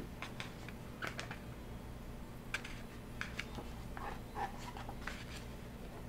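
Pages of a large hardcover photo book being handled and turned: scattered light paper rustles and soft taps, with a page turning about four seconds in.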